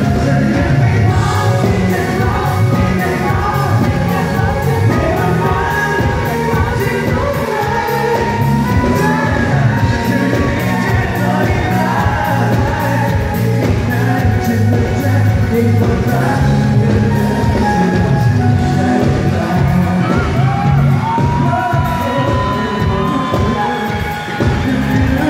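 A pop song performed live: a male singer over a full band with a steady beat, and some crowd noise behind.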